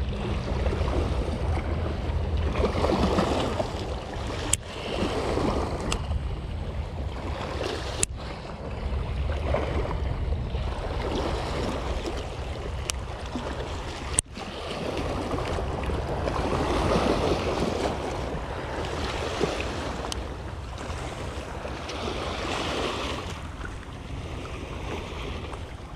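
Small waves washing over a rocky shoreline, swelling and ebbing every few seconds, with wind rumbling on the microphone. A few sharp clicks.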